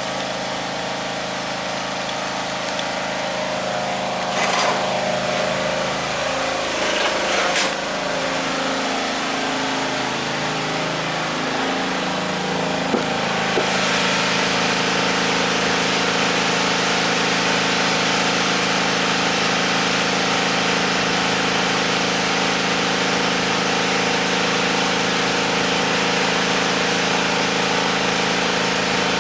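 A small engine running, its pitch sliding down and back up partway through, then running steady and a little louder for the rest.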